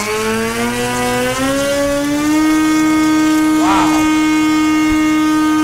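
Brushless electric motor and propeller of an E-flite Carbon-Z Cessna 150 RC plane on a 6-cell battery, run up on a bench thrust check: the whine rises in pitch, holds steady at full throttle for about three seconds, and winds down when the throttle is cut near the end.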